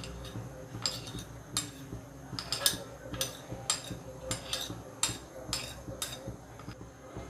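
A metal spoon clinking and scraping against a plate in a run of irregular light taps, as ingredients are scooped off into a bowl of flour.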